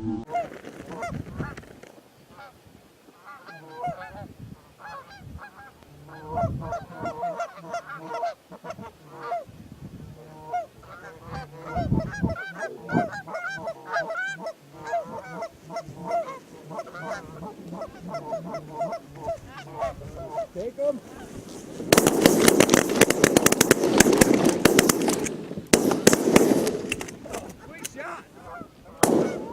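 Geese honking, many short calls one after another. About two-thirds of the way in, a loud burst of noise lasts about four seconds before the honking picks up again.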